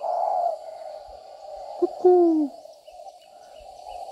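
Spotted dove cooing: a short low note, then a longer deep note that falls in pitch, about two seconds in, with the next coo starting right at the end.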